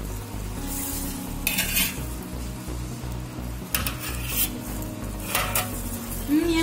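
Kitchen utensils clattering and scraping against a pan and dishes in three short bursts, about one and a half, four and five and a half seconds in, over a low steady hum.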